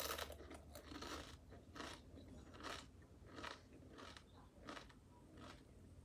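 A person chewing a crunchy corn chip with the mouth, a dry crunch with each chew, about every three-quarters of a second.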